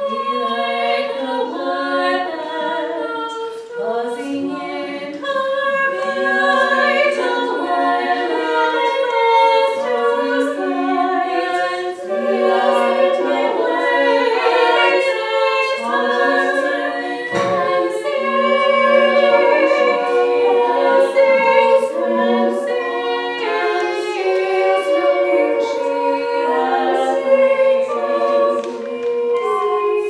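Choir singing in several-part harmony, voices holding and moving between sustained notes.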